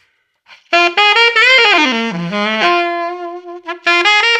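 Unaccompanied alto saxophone playing a short bluesy lick: a quick descending run of notes that settles on a long held note, then starting the same phrase again near the end. The lick resolves from the blues scale with a scoop into the major third of the key.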